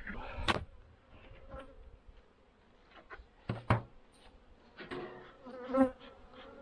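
Honeybees buzzing around the hive, single bees flying close past, loudest in a pass near the end. Two sharp knocks come early and a little past the middle as the hive parts are handled.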